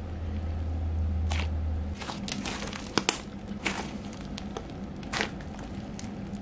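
Hands squishing and poking slime, giving a run of sharp clicks and crackly pops, two loud ones close together about three seconds in. A low steady hum fills the first two seconds.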